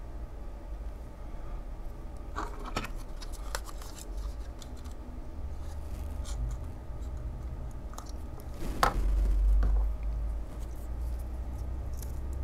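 Small side cutters snipping a resistor's wire leads: a few sharp clicks, with a louder click and a low thump of handling noise about nine seconds in.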